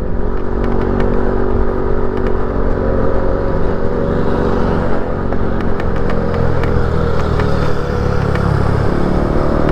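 Motorcycle engine running steadily while riding on the road, with wind and road noise; the engine note dips slightly near the end.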